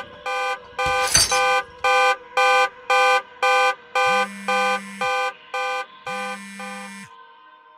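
Electronic beeping sound effect: a run of short pitched beeps, about two a second, with a brief crash about a second in. From about four seconds in a lower buzzing tone sounds for about a second every two seconds as the beeps fade out.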